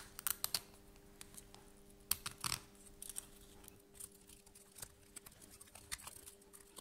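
Deburring tool's hooked swivel blade scraping and shaving along the edge of a 3D-printed plastic part, cutting away the thin sacrificial layer. Irregular short scratchy clicks and scrapes, with a few louder clusters.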